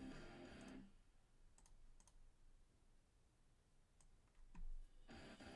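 A few faint, isolated clicks of a computer being worked while sorting a list, over near-silent room tone.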